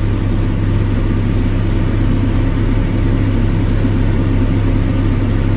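Farm tractor's engine running steadily at a constant speed, a loud, even low drone heard from the operator's seat.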